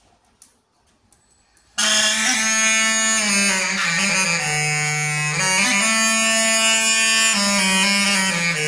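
Homemade plastic bagpipe with drinking-straw reeds and a melodica: after a few faint clicks it starts suddenly about two seconds in and plays a buzzy, reedy tune, several notes sounding at once with the low note stepping up and down.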